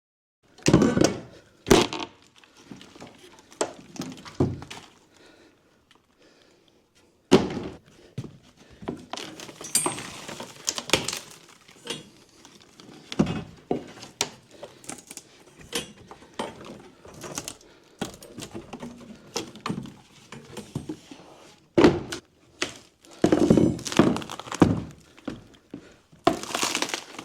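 Demolition of rotten wooden framing or flooring: irregular thuds, knocks and cracking as boards are struck, pried loose and broken. There is a short lull about five seconds in and a burst of heavier hits near the end.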